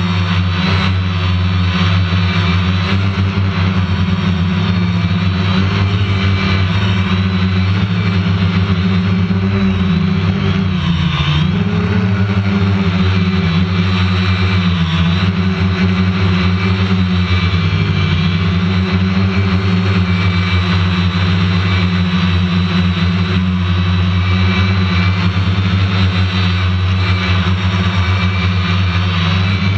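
Quadcopter drone's electric motors and propellers running steadily in flight, a loud buzzing drone whose pitch dips and rises a few times as the motors change speed, heard from the camera carried on the aircraft.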